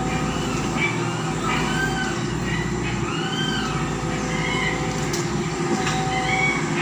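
Tata Hitachi excavator's diesel engine running steadily as the machine works its bucket in muddy water, with short high rising-and-falling whistles over it a couple of times.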